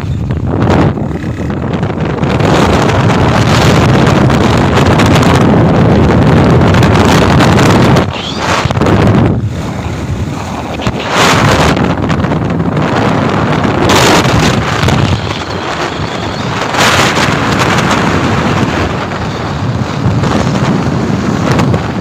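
Strong wind buffeting the microphone on a moving bike: a dense rushing noise that swells and drops in gusts, loudest in the first third, with vehicle running noise beneath.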